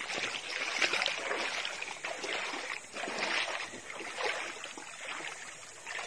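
Shallow seawater sloshing and swishing around the legs of someone wading through it, a surge of splashing with each stride, roughly one a second.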